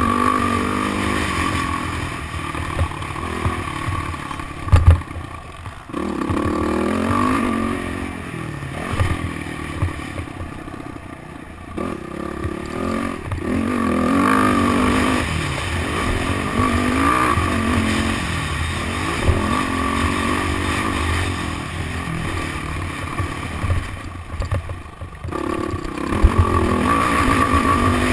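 Motocross dirt bike engine revving up and dropping off again and again as it is ridden hard round a track, over a haze of wind and track noise. A sharp knock sounds about five seconds in, and the engine falls briefly quiet twice, about six seconds in and near the end.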